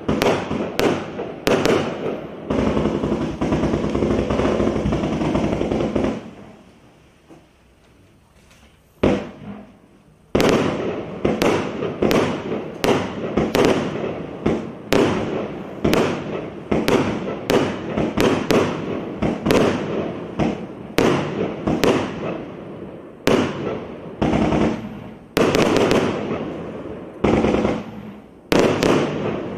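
A 192-shot consumer firework cake firing: a rapid series of launch thumps and aerial bursts. A few seconds in, the shots merge into one continuous dense rush. After a lull of about three seconds, single shots resume at about one or two a second.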